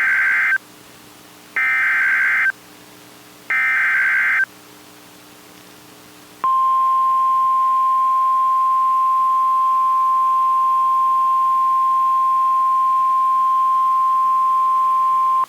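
Emergency alert signal from NOAA Weather Radio: three short screeching data bursts of the SAME alert header, each about a second long with a second's gap, then a steady single-pitch warning alarm tone, the 1050 Hz weather radio alert tone, held for about nine seconds. It signals that a warning, here a severe thunderstorm warning, is about to be read.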